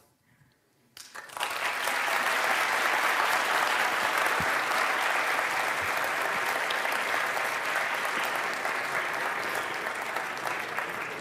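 Audience applauding. It comes in about a second in after a moment of silence, holds steady, then slowly fades.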